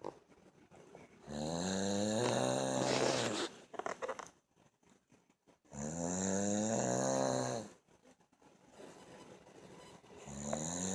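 A sleeping person snoring: two long, rasping snores about four seconds apart, with a third beginning near the end.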